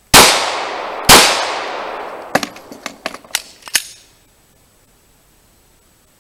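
Two handgun shots about a second apart, each trailing off in a long fading echo, followed by several short sharp ticks.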